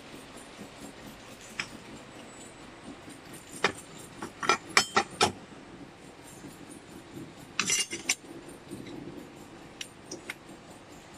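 Sharp metallic clinks and taps of metal mould plates being handled, a quick run of several in the middle and another short cluster a few seconds later, over a steady low machine hum.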